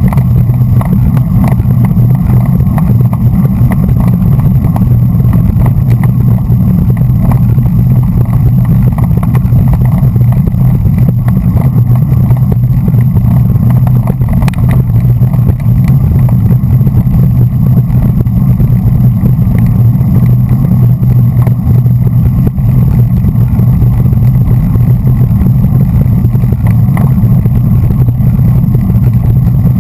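Steady low wind rumble on a bike-mounted action camera's microphone while riding at race speed in a bunch, with a single sharp click about halfway through.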